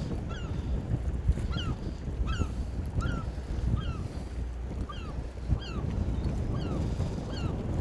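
A seagull calling over and over, short bent calls about one to two a second, over a steady low rumble of wind on the microphone.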